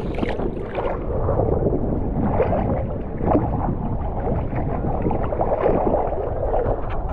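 Sea water splashing and sloshing close to the microphone in uneven, choppy bursts.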